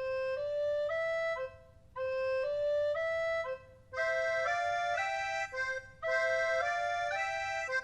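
A simple tune on a reedy melody instrument, played as one note line in four short phrases of about a second and a half each, with brief pauses between them.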